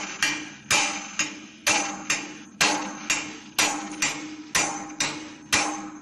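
Steel hammer striking a welded steel shear stud, about two blows a second, each a sharp metallic clang that rings on. The stud is being hammered over in a bend test of its weld to the steel plate.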